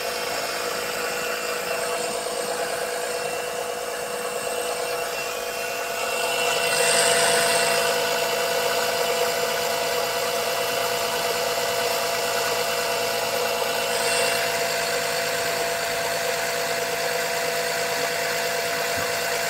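Small oil-extraction suction pump running with a steady motor hum and hiss, straining to pull oil out of the engine: not enough vacuum for the thick oil, so hardly any comes out. It gets a little louder and hissier for a second or two about seven seconds in.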